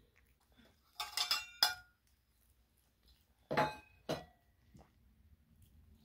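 Stainless steel food bowl clinking as a kitten eats wet food from it, each clink ringing briefly. There is a quick cluster of three or four clinks about a second in, then two more around three and a half and four seconds.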